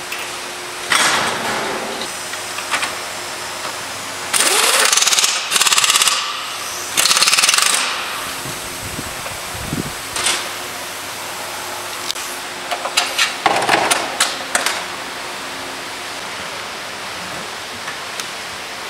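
Pneumatic impact wrench rattling in short bursts as bolts are run down. There are two longer bursts in the middle and a run of sharp metallic clicks and clanks a few seconds before the end, over a steady background hiss.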